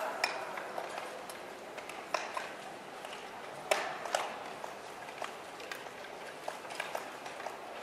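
Low background noise of a speed skating rink, with scattered sharp clicks and knocks, the loudest about two seconds in and about four seconds in.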